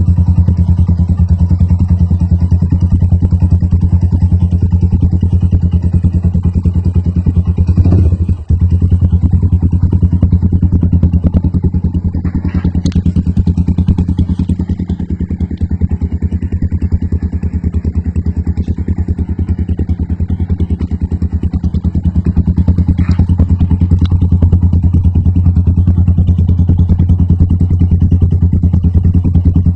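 Rusi SS Nova 150 motorcycle with an Akrapovic-style aftermarket exhaust, idling steadily with a loud, low exhaust note. The note briefly cuts out for a moment about eight seconds in, then carries on.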